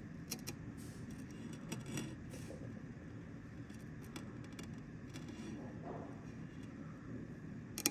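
Low, steady workshop background noise with a few light clicks in the first couple of seconds and one sharper click near the end.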